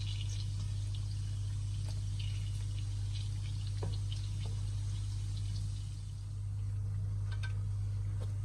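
Donuts frying in hot oil: a soft bubbling sizzle with scattered small crackling pops, over a steady low hum.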